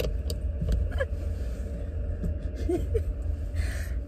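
Low steady rumble heard inside a parked car, with scattered light clicks and a short soft laugh near the end.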